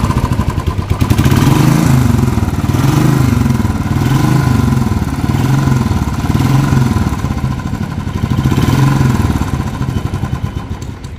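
Bobber-modified Royal Enfield motorcycle's exhaust, the running engine revved about five times, each rev rising and falling back.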